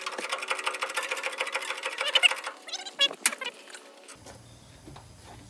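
Semi-truck's Detroit Diesel engine running, heard as a fast, even mechanical clatter. It turns uneven with a sharp click about three seconds in, then drops away to a faint background about four seconds in.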